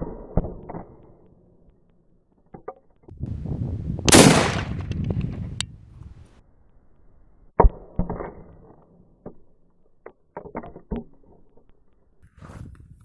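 .300 Remington Ultra Mag rifle firing at ice-filled targets. The loudest shot is about four seconds in and is followed by a long rolling echo. There are sharper cracks at the very start and about seven and a half seconds in, and a run of small clicks around ten to eleven seconds.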